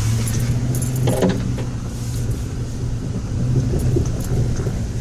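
Ford Raptor pickup's engine droning steadily, heard from inside the cab as it drives a rough off-road trail, with light rattling and clinking from the truck jostling over the ground.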